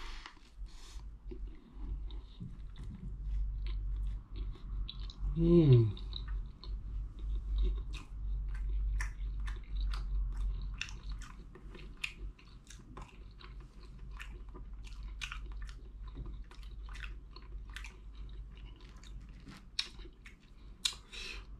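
Close-up chewing of a bite of toasted bread with raw honeycomb: a steady series of crisp crunches and mouth clicks, a few each second. A brief falling 'mmm' hum comes about five seconds in.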